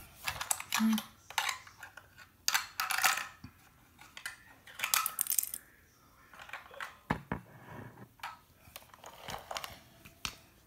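Irregular clicks, taps and short clattering scrapes of plastic Lego toys being handled and moved about on a hard tile floor, close to the microphone.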